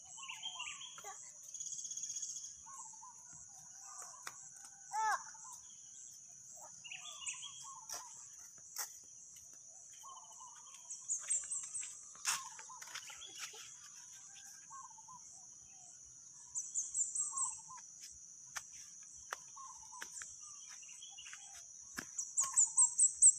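Outdoor ambience of insects and birds: a continuous high-pitched insect drone under scattered bird calls. Three times, about a third of the way in, past halfway and near the end, a bird gives a quick run of rising high notes, the loudest sounds.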